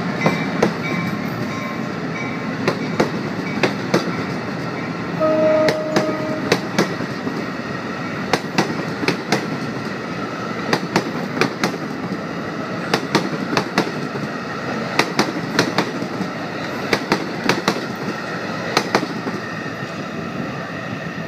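NJ Transit Multilevel commuter train rolling past along the platform, its wheels clicking over rail joints, often in pairs, over a steady rumble. A short steady tone sounds about five seconds in.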